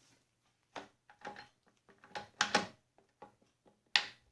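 Metal parts of a South Bend 9 Model A lathe's gearbox being handled: a series of short metallic clicks and clunks, some with a brief ring, the loudest around the middle and a sharp click near the end.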